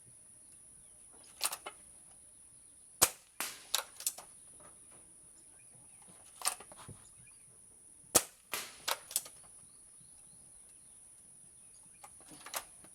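A .22 Crosman Nitro Piston break-barrel air rifle is fired twice, about five seconds apart, each shot a sharp crack. Between the shots come short clusters of clicks and knocks as the rifle is cocked and a pellet is loaded for the next rapid shot. A steady high hiss runs underneath.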